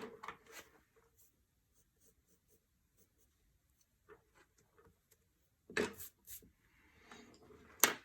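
Small handling noises of art supplies on a tabletop: faint scratching and rubbing on paper, a few light ticks, and sharp clicks about six seconds in and again just before the end.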